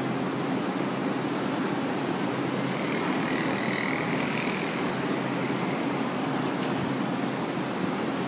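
Steady hum and rushing noise of a CAF-built fleet P metro train standing at the platform, with a faint high whine about three seconds in.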